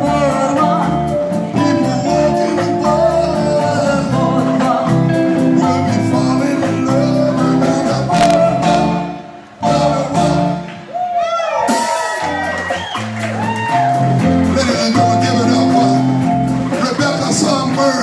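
Live band performing with male and female vocals, electric guitar, keyboard and drums. The music stops for a moment about halfway through, then comes back in with a sliding vocal line.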